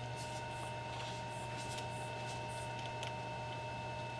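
Steady electrical hum from running equipment, a low hum with a few thin whining tones above it, with a few faint light ticks of handling.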